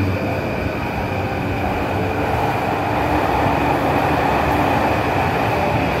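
JR Yamanote Line electric commuter train pulling out along the platform, a steady rush of wheels and running gear that grows fuller about a second and a half in.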